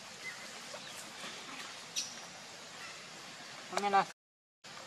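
A short, loud call from a voice, with a clear pitch, near the end, over a steady outdoor background with faint ticks and chirps. The sound then cuts out completely for about half a second.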